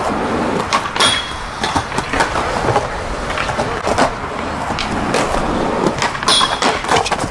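Skateboard wheels rolling on concrete, with repeated sharp clacks of the board hitting the ground. The loudest clacks come about a second in and just after six seconds.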